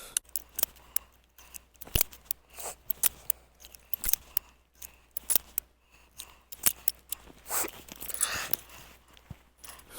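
Cimarron .45 Long Colt single-action revolver being handled at the loading gate between strings of fire: a run of small sharp metallic clicks as the cylinder is turned and cartridge cases are pushed out and handled, with brief rustling twice near the end.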